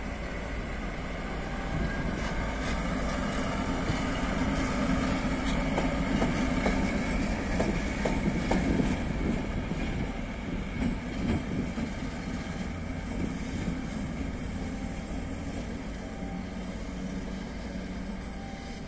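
Locomotive passing slowly on the station tracks: a steady low drone with clacks of the wheels over rail joints, loudest about halfway through, then fading as it moves away.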